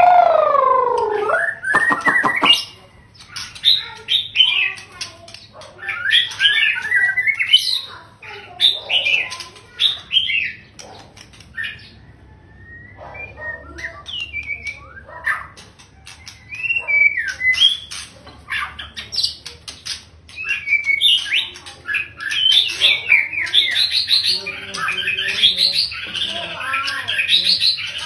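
Male white-rumped shama singing a long run of varied, clear whistled phrases with short pauses between them. The song opens with a loud falling note and a quick rattle of clicks.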